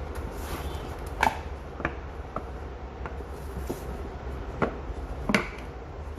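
A phone's retail box and packaging being handled: about six sharp clicks and taps, the loudest about a second in and near the end, over a steady low rumble.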